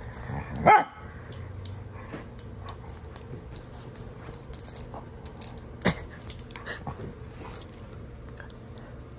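Two dogs play-fighting: a loud bark about a second in and another sharp one near six seconds, with scuffling and smaller yips on the bedding in between.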